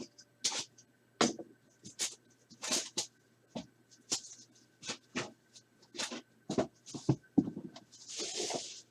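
Wrapping and foil packs of a sports card hobby box being handled and torn open: short crinkles and rustles about one or two a second, with one longer tearing rip near the end.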